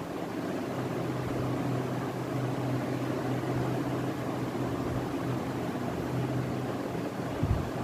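Steady low mechanical hum with a hiss of background noise, and a brief low thump near the end.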